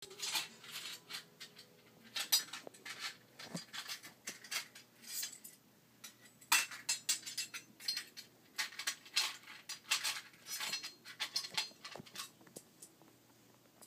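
Small stainless-steel toy pots, bowls and a spoon clinking and tapping against each other in irregular light knocks as they are stirred and handled.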